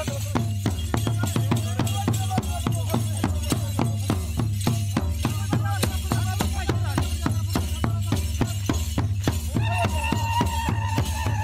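Drum-led dance music: quick, even drum strokes with rattles over a steady low bass, and a long held high note coming in near the end.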